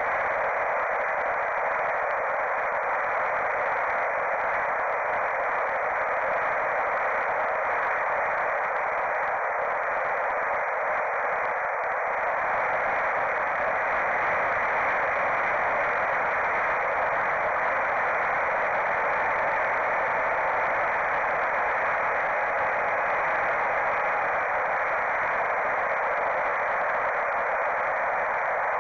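Steady hiss from a mini FPV flying wing's onboard camera microphone, heard over the analog video link: mostly static and airflow noise, with no clear motor tone standing out.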